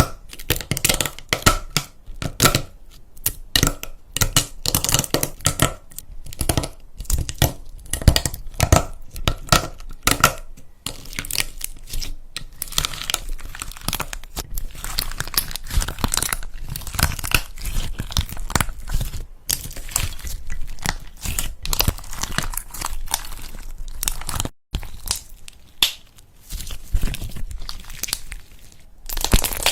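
Close-miked crackling, crunching and tearing from a crunchy material being squeezed, pulled and broken apart by hand, in a dense, irregular stream with a brief pause near the end.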